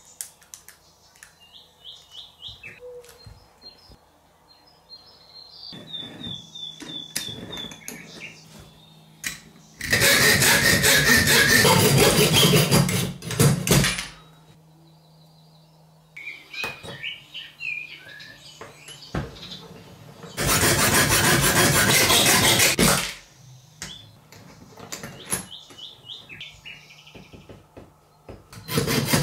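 Hacksaw cutting through a thin steel mount clamped in a bench vise, in two loud spells of a few seconds each, starting again at the very end. Between them come quieter clicks, taps and short squeaky scrapes of the small steel parts being handled.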